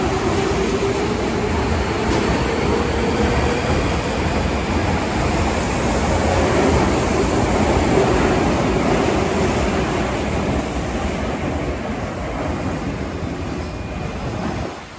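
Osaka Metro Series 21 subway train pulling out of the station: a loud, steady rush of wheel and running noise with a faint rising motor whine as it speeds up, dying away over the last few seconds as the rear cars leave the platform.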